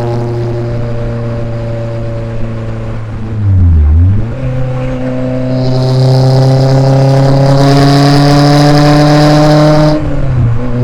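Renault Spider's mid-mounted 2.0-litre four-cylinder engine, heard close up with the engine lid off, pulling on the road. The engine note breaks for a gear change about three and a half seconds in, then the revs climb steadily and the sound grows louder until a second gear change near the end.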